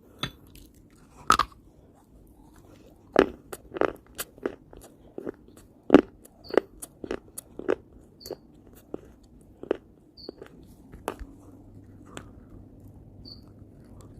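Close-up biting and chewing of a hard, crunchy food: a run of sharp crunches, thickest in the middle, then thinning out toward the end.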